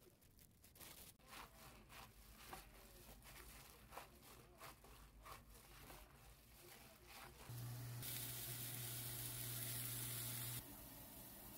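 Ground pork mixture being kneaded and slapped by hand in a stainless steel bowl: irregular soft wet squelches. About eight seconds in, a steady sizzle starts as a patty fries in a pan.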